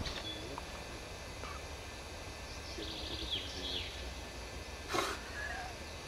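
Outdoor ambience with a steady low rumble and a few short bird chirps, most of them about three to four seconds in. A single sharp click comes about five seconds in.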